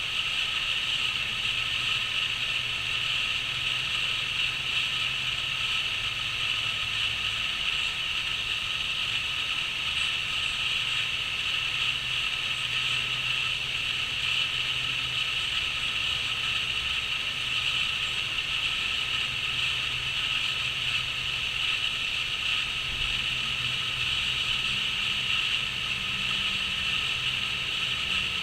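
Crickets chirping in a steady, dense chorus.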